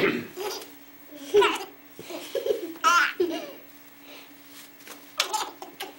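Baby laughing in short bursts of giggles and belly laughs.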